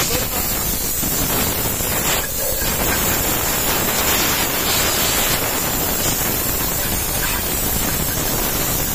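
A handheld spray lance fed from a canister, jetting cleaning fluid hard onto a bare cast-iron engine block: a loud, steady hiss of spray.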